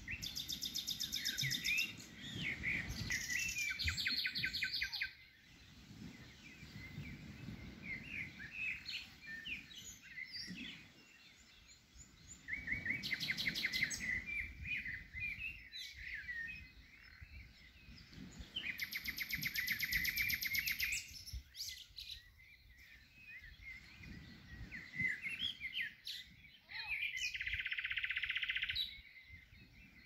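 Songbirds singing and calling: several loud, fast rattling trills and many short chirps, over a low, steady wash of the sea.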